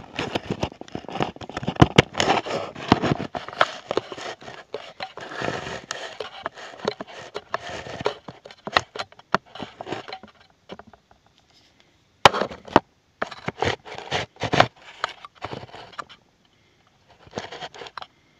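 Rustling, crackling and scraping handling noises with many sharp clicks, dense for the first ten seconds or so, then coming in short bursts separated by brief quiet gaps.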